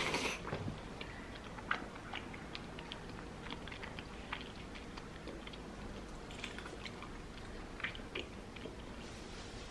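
A person chewing food close to the microphone, with many short, irregular mouth clicks. A brief louder noisy rustle comes right at the start.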